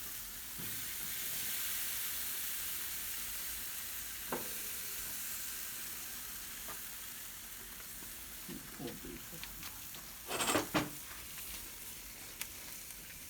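Marinated rohu fish and chicken sizzling over hot charcoal on a barbecue grill, a steady hiss. It is broken by a few faint clicks and one louder, brief clatter about ten and a half seconds in.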